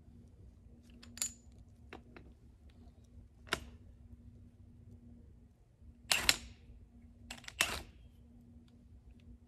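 Sharp metallic clicks and clinks from fitting a cordless drill onto the top of a steel drill extension rod: about five, the loudest a little past the middle and two in quick succession soon after. The drill motor is not running.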